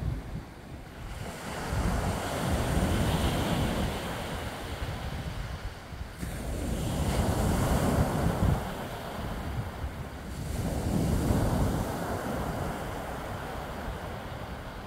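Small waves breaking on a pebble beach and washing up the shingle, swelling three times, with wind rumbling on the microphone.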